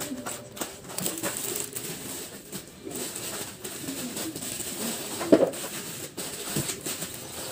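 Plastic snack packets and gift bags rustling and crinkling as they are handled and packed, with scattered small knocks and one sharper knock a little after five seconds.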